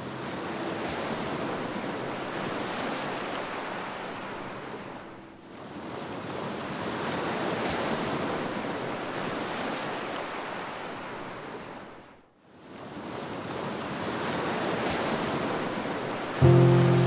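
Ocean surf washing in and out in three long swells, each fading almost away before the next, with music coming in loudly near the end.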